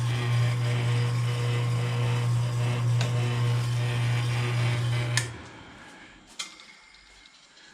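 Diamond M22 milling machine's electric motor running with a steady low hum, then switched off with a click about five seconds in, the sound dying away; another click follows about a second later.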